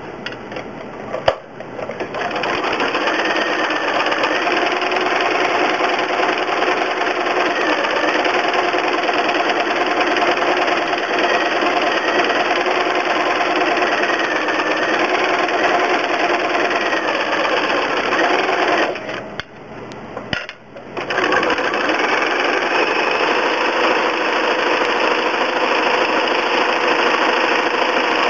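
Domestic sewing machine stitching fast in straight stitch with a darning foot, its motor and needle mechanism running steadily. A sharp click comes just before it starts. It stops briefly about two-thirds of the way through, then starts again.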